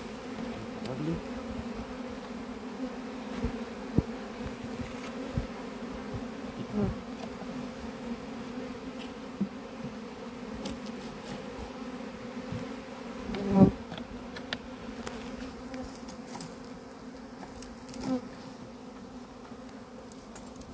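A honeybee swarm buzzing steadily around a hive box, with a few short knocks over the buzzing, the loudest about two-thirds of the way through.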